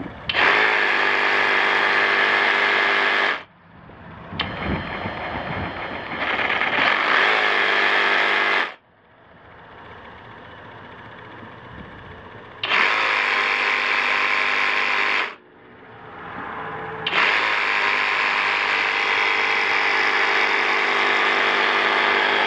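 Flex FX2271 24-volt brushless cordless reciprocating saw running with no blade load, started and stopped four times with the trigger: a steady, high whirr each time it runs. Before the second run and the last one the speed climbs gradually under a part-pulled trigger, and the last run carries on to the end.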